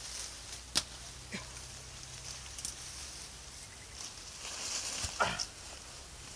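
Leaves rustling and twigs cracking as a person climbs down through a citrus tree: a sharp crack about a second in, a few smaller snaps, then a rush of leaf rustle and a thump about five seconds in as he gets down to the ground.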